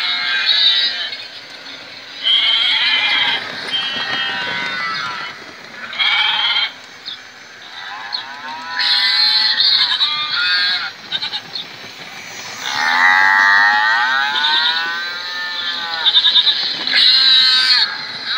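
Recorded farm-animal calls, goats and sheep bleating and cattle mooing, played by the sound units in model railway livestock wagons. The calls come one after another with short gaps, and the longest one, about thirteen seconds in, bends in pitch.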